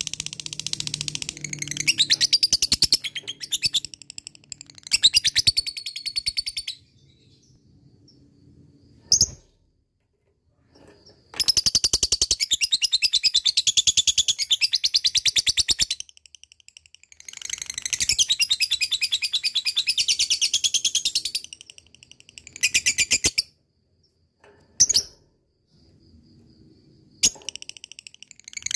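Lovebird in 'ngekek' song: long bursts of very fast, high, rattling chatter, each lasting one to several seconds, with short pauses between them.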